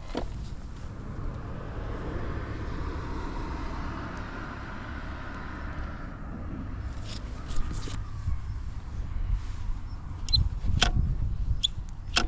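Suzuki Street Magic 50 scooter's small two-stroke engine running steadily, with a few sharp clicks in the second half; the seller presents it as running without abnormal noise.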